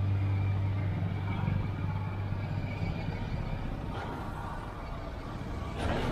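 Steady road and vehicle noise, a broad rush without clear engine pitch, with a short louder surge near the end. The tail of background music fades out in the first half-second.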